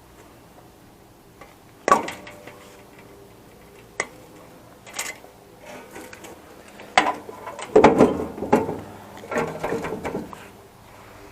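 Server hardware parts being worked loose by hand: sharp single clicks and knocks about two, four, five and seven seconds in, then a busier stretch of clattering and rattling.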